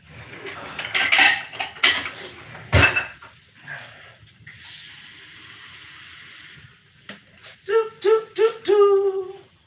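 Kitchen clatter of a drawer, a measuring cup and utensils being handled, with a loud knock about three seconds in, then a tap runs for about two seconds, filling the cup with water to thin the chili. Near the end a voice gives four short high notes.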